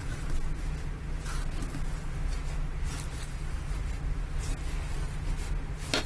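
Knife blade scoring the scaled skin of a whole raw sea bream: a series of short, scratchy cuts and scrapes at irregular intervals, over a steady low hum.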